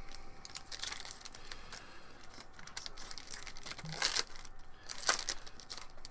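Foil wrapper of a trading-card pack crinkling as it is torn open by hand, with two louder crackles about four and five seconds in.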